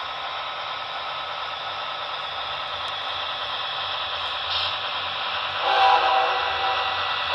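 Model train locomotive running along the layout track, a steady hissing running noise that grows slowly louder as it comes closer. Near the end a louder tone with several pitches at once sounds briefly.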